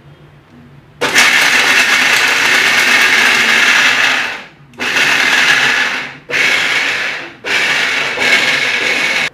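Electric mixer grinder grinding coconut pieces dry, without water, to a coarse texture. It runs loud for about three seconds, then in three shorter bursts with brief stops between.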